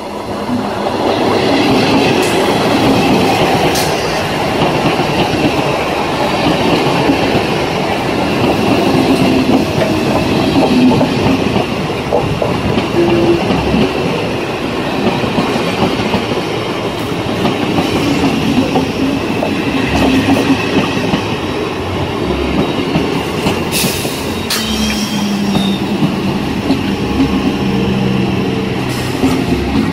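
Kolkata suburban EMU (electric multiple unit) local train passing close by: a steady loud rumble of its wheels running on the rails, with occasional sharp clicks.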